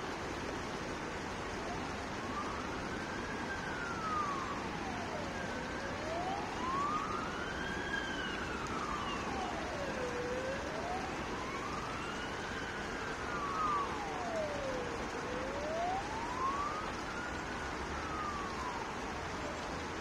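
Emergency vehicle siren in a slow wail, its pitch rising and falling about every five seconds, over a steady background hiss.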